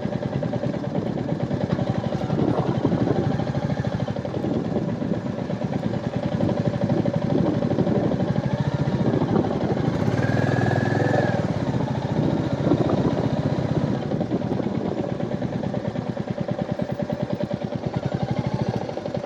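Royal Enfield Meteor 350's single-cylinder engine running steadily.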